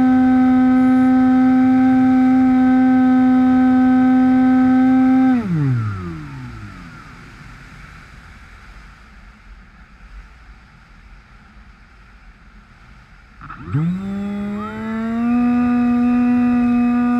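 Electric brushless motor (Turnigy D2826-6 2200kV) of a Bixler RC plane, turning a 6x5-inch propeller with a steady high whine. About five seconds in the throttle is cut and the whine falls away to nothing, leaving faint rushing air while the plane glides. About fourteen seconds in the motor spools back up, its whine rising quickly and then levelling off.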